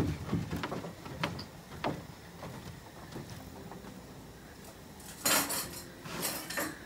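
Scattered light clicks and knocks of grilling gear and dishes being handled, then two short, loud rustling bursts about five and six seconds in.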